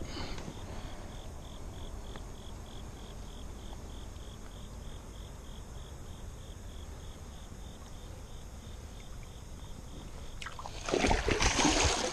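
A large blue catfish splashing in shallow river water as it is released and swims off, a burst of splashing starting about ten and a half seconds in and lasting a second or so. Before that there is only a low, steady background.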